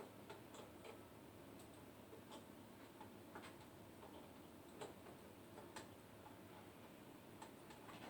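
Faint, irregularly spaced small clicks and taps, plastic and tool handling as the stereo's casing panel is worked open with a flat screwdriver.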